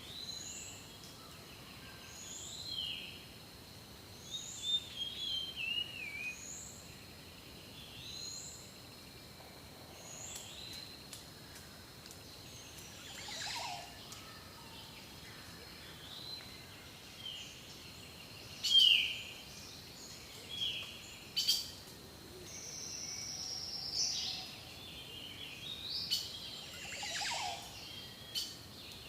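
Several songbirds singing and calling at once over a steady background hiss. One bird repeats a short high downslurred note about once a second through the first ten seconds, while others add chirps and warbled phrases, the loudest of them a little past the middle.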